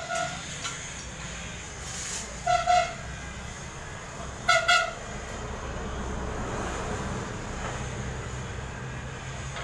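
A vehicle horn sounds in two short double beeps, about two seconds apart, over a steady low engine rumble.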